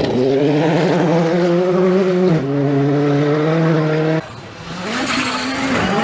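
Rally car engine running hard on a gravel stage, its pitch stepping down a little over two seconds in. After an abrupt cut, a second rally car's engine grows louder, rising in pitch as it approaches.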